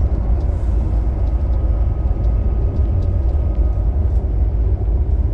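Steady low rumble of a tour coach cruising on a highway, heard from inside the cabin: engine and road noise.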